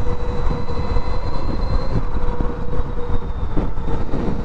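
NIU XQi3 electric motorcycle at cruising speed, its electric motor giving a steady faint whine under heavy wind rumble on the microphone.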